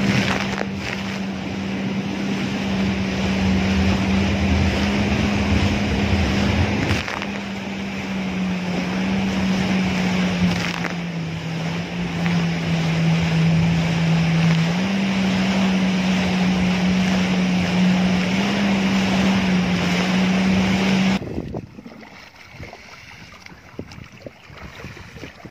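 Yamaha WaveRunner jet ski engine running at speed: a steady drone that dips a little in pitch partway through and comes back up, with wind buffeting the microphone and the rush of spray. Near the end it cuts off suddenly to a much quieter stretch.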